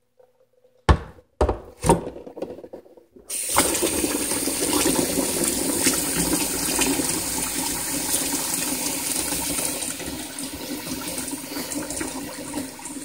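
A few sharp knocks in the first three seconds, then a kitchen tap runs steadily into a stainless saucepan of hard-boiled eggs, the cold water splashing over them to stop the cooking.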